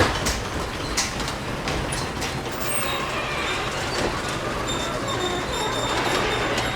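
Garage door travelling along its metal track: a steady rumble with scattered clicks and rattles, and faint high metal-on-metal squeals coming in after a few seconds.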